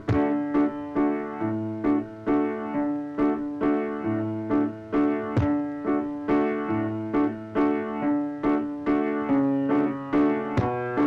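Keyboard music with a piano-like sound: chords struck in a steady, repeating pattern about twice a second over a low bass note that changes every couple of seconds.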